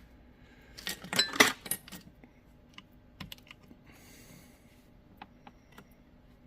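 Small chainsaw parts being handled and fitted by hand: a quick flurry of clicks and rattles about a second in, then scattered single clicks.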